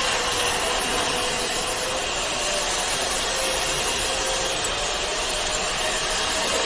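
Steady running noise of a machine's hydraulic power unit and oil-cooling fans, an even hiss with a faint steady hum.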